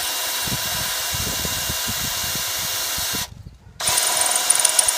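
Electric drill running steadily as it drills out a pop rivet on a lawnmower's pull-start assembly. It cuts out briefly a little after three seconds in, then runs again.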